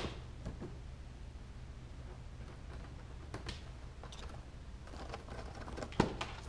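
Kittens playing on and around a cardboard box and a small toy wagon: light scattered taps and scrabbles of paws and bodies on cardboard, with one louder knock about six seconds in as a kitten pounces onto the box. A steady low hum runs underneath.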